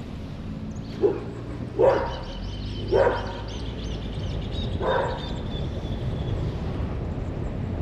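A dog barking four times at uneven intervals over the steady low rumble of a car driving.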